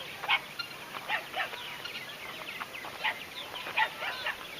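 A flock of purple martins calling over one another, many short chirps and croaks overlapping in a steady chorus with louder calls standing out every half second or so.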